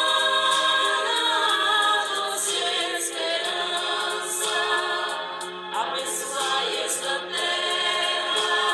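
Background music with a choir singing long, held notes.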